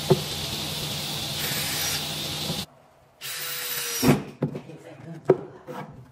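Cordless drill driving screws to fix a metal drawer slide inside a wooden cabinet: the motor runs steadily for over two and a half seconds, stops suddenly, runs again briefly, then a few sharp knocks follow.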